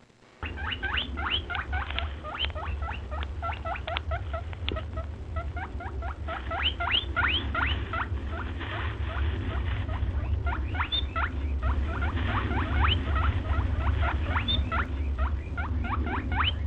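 Rapid high squeaks of a small animal: many short calls sweeping upward in pitch, several a second, over a steady low rumble.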